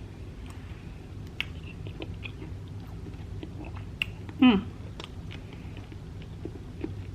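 Close-miked chewing of a soft sugar cookie treat, with small wet mouth clicks scattered throughout and one brief hum about four and a half seconds in.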